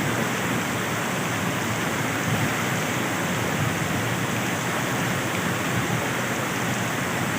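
River in flood after heavy rain, its fast water rushing in a steady, even noise.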